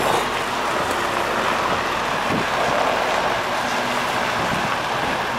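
Diesel engine of a semi-trailer truck running at low speed as the articulated lorry manoeuvres slowly, a steady drone.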